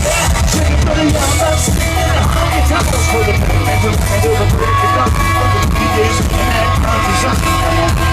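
Loud music with a singing voice and a heavy, steady beat.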